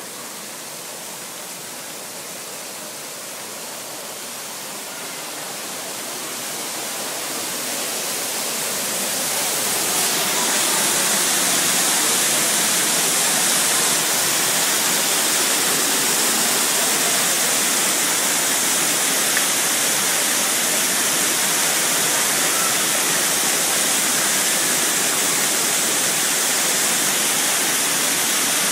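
Rushing water: a steady hiss that grows louder over the first ten seconds or so, then holds level.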